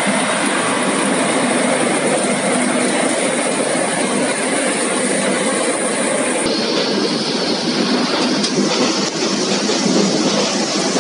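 Brush-roller potato washing and peeling machine running, with potatoes tumbling and rattling against its rotating brush rollers in a steady, loud mechanical clatter.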